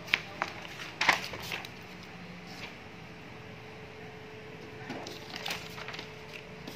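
Sheets of paper being handled on a Sharp copier's platen glass: a few short clicks and knocks with paper rustling, the loudest about a second in and more around five to six seconds in, over the copier's steady hum.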